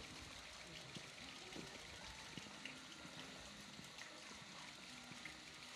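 Faint, steady background hiss like trickling water, with scattered light ticks.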